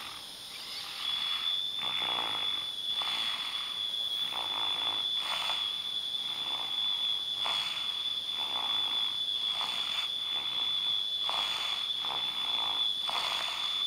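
A one-year-old child snoring in his sleep, in quick, regular breaths. A thin, steady high-pitched tone starts about a second in and runs alongside.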